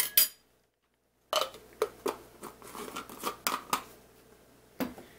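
Metal spoon clinking and scraping against a glass jar and a bowl as minced garlic is scooped out: a string of light taps and clicks, broken by about a second of dead silence shortly after the start.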